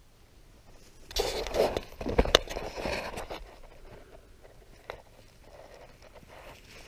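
Close handling noise from a camera being moved and set down in grass: a burst of rustling and scraping with a sharp knock about two seconds in, then fainter rustling and a small click.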